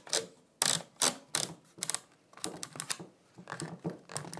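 Magazine tube cap being screwed onto a Beretta A300 Ultima Patrol 12-gauge shotgun's magazine tube: a string of irregular metal clicks and knocks, the loudest about a second in.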